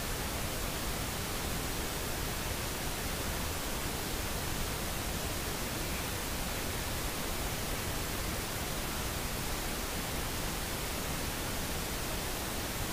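Steady, even background hiss with no other sound.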